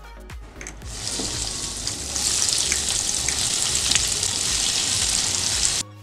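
Breadcrumb-coated potato cheese balls sizzling as they deep fry in hot vegetable oil. The sizzle comes in about a second in, grows louder soon after, and cuts off suddenly near the end.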